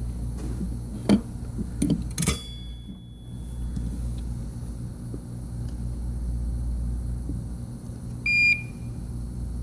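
A short single electronic beep about eight seconds in, over a steady low hum, with a few sharp clicks in the first couple of seconds.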